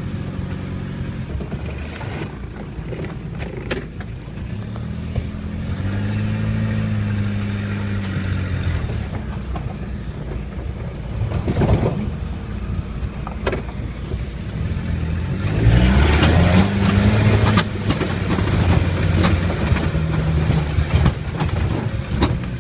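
Suzuki off-road 4x4's diesel engine revving up and down as it is driven over a rough dirt and gravel track. There are two sharp knocks about halfway through. Later the engine revs climb and the sound gets louder, with a rush of dirt and stones thrown up by the tyres.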